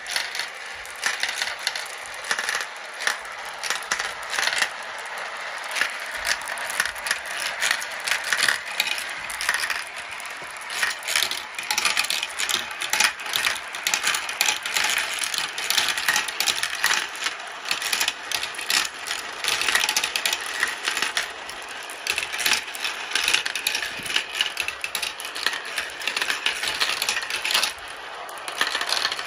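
Many glass marbles rolling and clattering through a clear plastic marble run: a dense, continuous patter of clicks as they swirl around the funnel bowls, knock against each other and drop through the tubes.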